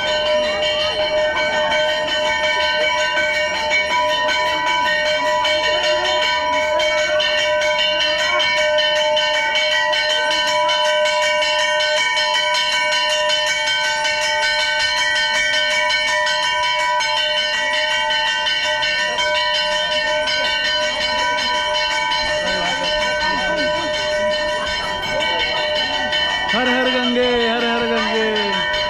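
Temple bells ringing steadily, the strokes running together into one continuous metallic ringing of several clashing tones. A man's voice comes in briefly near the end.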